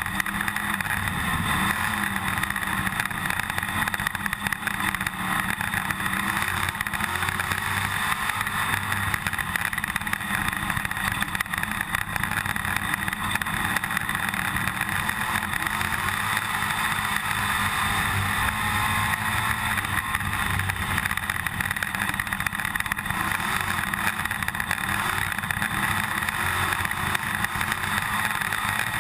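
IMCA stock car's V8 engine racing at full speed on a dirt oval, heard from inside the cockpit under a heavy, constant rattle, with the engine note rising and falling.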